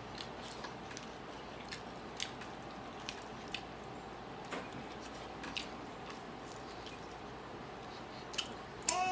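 Close mouth sounds of eating grilled chicken by hand: scattered short wet clicks and smacks of biting and chewing. Right at the end a louder pitched cry begins, arching up and then falling.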